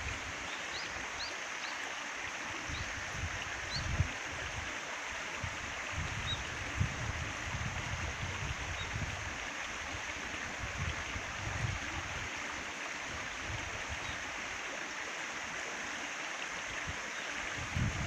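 Shallow, clear stream running steadily over gravel and stones, an even rush of flowing water.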